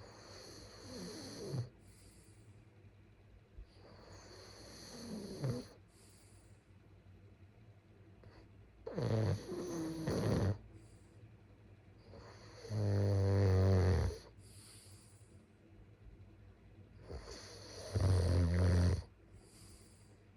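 A sleeping person snoring: five snores about four seconds apart, with quiet breathing between them. The first two are soft, and the last three are louder and deeper, with a low buzz.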